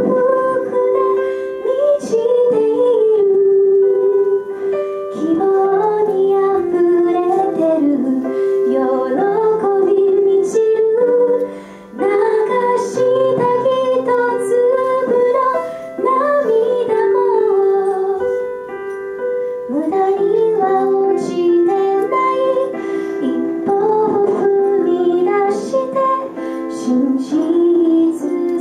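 Small gospel choir singing a song in held, sustained phrases with keyboard accompaniment.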